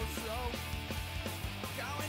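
Rock song playing: guitar over a steady beat, with a singer's voice.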